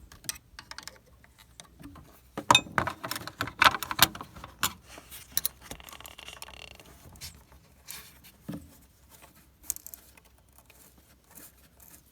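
Irregular clicks, taps and knocks of hands and tools handling hose fittings in a van's engine bay, busiest a few seconds in, with a brief hiss and a dull thump later on.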